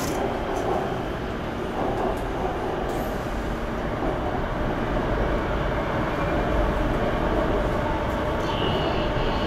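Steady running noise of a Bangkok MRT Blue Line metro train, heard from inside the passenger car as it climbs from the tunnel toward the elevated track. The low rumble grows a little stronger about halfway through, and a brief high-pitched squeal comes in near the end.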